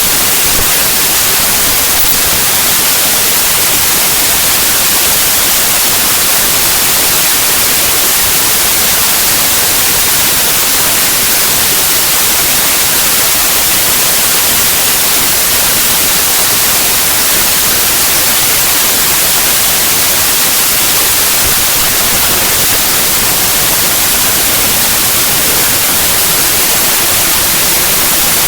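Raw bytes of a compressed zip archive played as 8-bit unsigned mono audio: loud, steady, harsh static like white noise, hissier at the top, with no tones, rhythm or events. The compressed data is close to random, so it sounds as pure noise.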